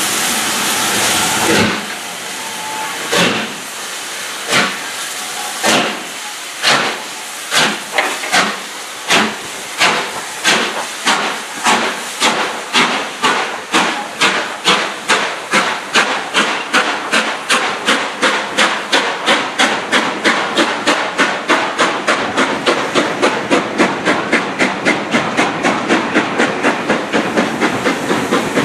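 LMS Stanier 'Black 5' 4-6-0 steam locomotive No. 45305 starting a passenger train: a loud hiss of steam for the first couple of seconds, then its exhaust beats begin slow, about a second apart, and quicken steadily to about four a second as the train gathers speed.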